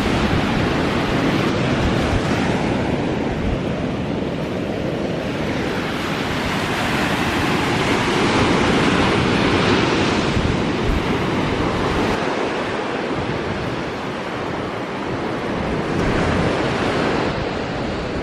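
Ocean surf breaking and washing in, swelling louder about halfway through and again near the end, with wind rumbling on the microphone.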